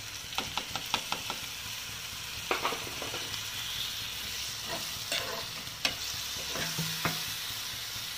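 A steel spoon stirring and scraping onion-tomato masala with freshly added yogurt in a frying pan, over a steady sizzle of frying. The spoon clicks against the pan in a quick run in the first second or so, then a few more times.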